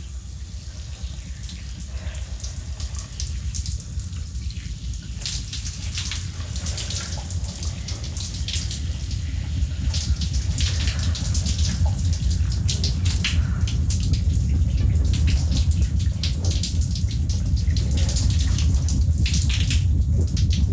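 Shower running, its water spraying and splashing, over a deep low rumble that grows steadily louder.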